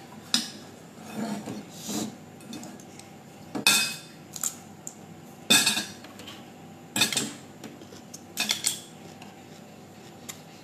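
Metal spoon clinking and scraping against a stainless steel mixing bowl, in separate strokes every second or so, while a spicy salad is mixed.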